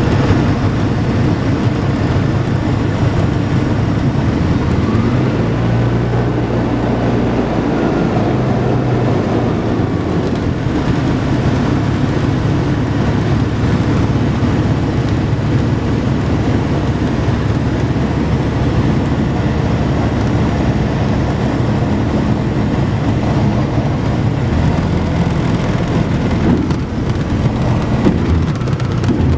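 Tecnam P92 Echo Super's Rotax 912 engine running at reduced landing power, heard from inside the cockpit over steady airflow noise. The engine note shifts a few seconds in.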